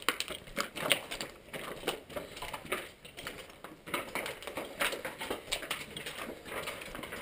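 Footsteps crunching and scuffing over debris on the floor: a string of irregular crackling clicks.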